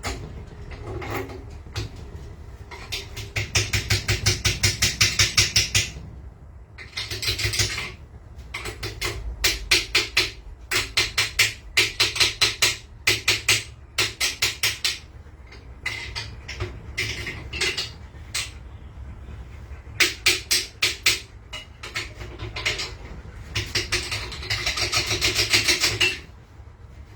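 Hand ratchet wrench clicking in quick runs of rapid ticks with short pauses, as bolts are backed out of a 4.8/5.3 V8 block after being broken loose.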